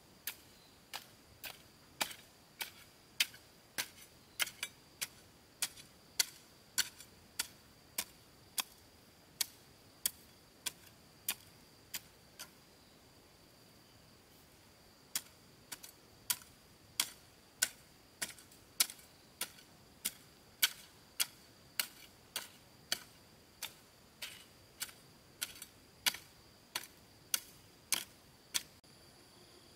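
A hand tool striking again and again in an even working rhythm, roughly three sharp strikes every two seconds, with a pause of about three seconds near the middle. A steady high insect buzz runs behind.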